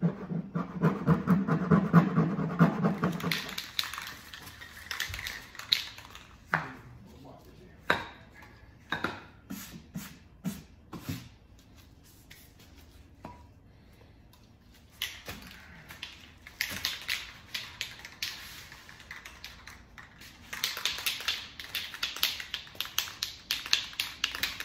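A hand rubbing the plastic side of a cooler in quick back-and-forth strokes, then scattered clicks of aerosol spray-paint cans being handled, and near the end a can being shaken, its mixing ball rattling rapidly.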